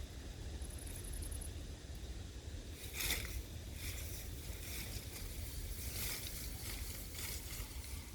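Alpacas pulling at and chewing leaves: repeated short rustling and crunching of foliage starting about three seconds in, over a steady low rumble.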